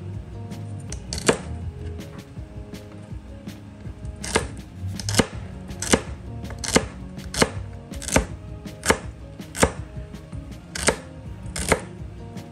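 Knife chopping a rib of celery on a cutting board: one sharp chop, a pause, then about ten evenly spaced chops a little under a second apart.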